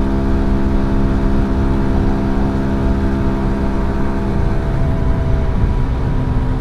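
Rusi Swish ZX125's single-cylinder 125 cc engine running at a steady high speed in fourth gear, a level drone. Wind rumbles on the microphone underneath.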